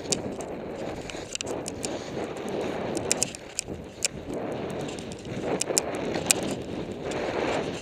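Skis scraping over snow through quick turns in moguls, the noise swelling and fading with each turn about every second, with sharp clicks mixed in.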